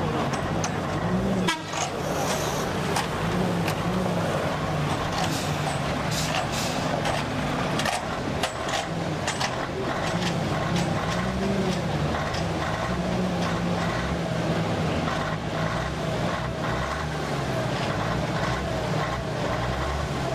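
Lorry engine running steadily as the loaded truck pulls away down a gravel road, with scattered knocks and rattles from the body.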